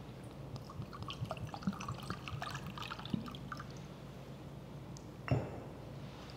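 Small clinks and a trickle of liquid as the altar vessels are handled, likely during the purification after communion, for the first three and a half seconds. A single knock follows a little after five seconds in, over a steady low hum.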